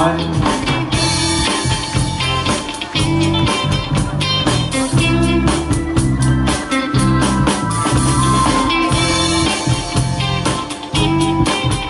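Instrumental stretch of a karaoke backing track played over loudspeakers: guitar and drums with a steady beat, and no singing.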